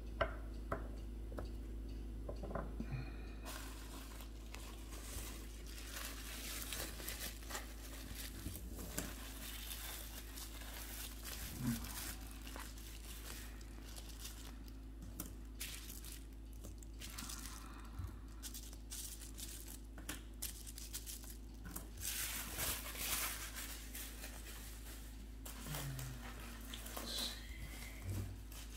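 Bubble wrap and plastic packaging crinkling and rustling as miniatures are unwrapped by hand, with scattered light clicks of small miniature pieces being set down on the table.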